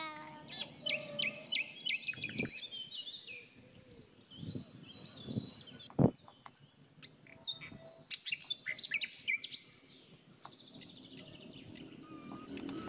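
Small birds chirping in rapid, high repeated notes, busiest in the first few seconds and again later. A few dull low knocks sound in between, with one sharp thump about halfway through.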